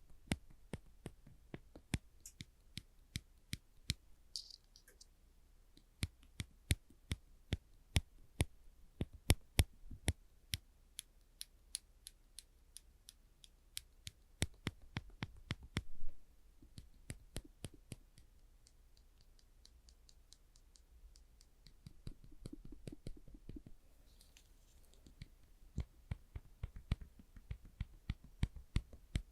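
Orange-tipped clamps pressed and released over and over, giving sharp plastic clicks at an uneven pace, often several a second, with a sparser stretch and some soft handling rustle past the middle.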